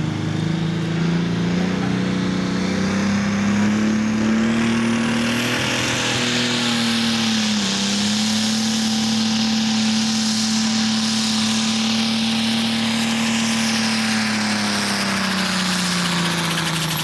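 Deutz Agrotron Pro Stock pulling tractor's turbocharged diesel engine running flat out through a full pull against the weight-transfer sled. The revs climb over the first few seconds with a high turbo whistle rising alongside, hold steady apart from a brief dip about halfway, and wind down near the end.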